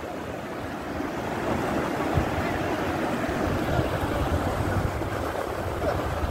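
Flash-flood water rushing down a street in a fast, muddy torrent: a steady, unbroken wash of noise that swells a little about a second in, with low rumbling on the microphone.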